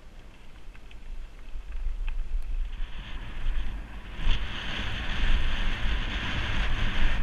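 Wind buffeting the microphone of a helmet-mounted GoPro on a mountain bike descending a dirt trail, with a low rumble; it grows louder about three seconds in and again just past four seconds as the bike speeds up.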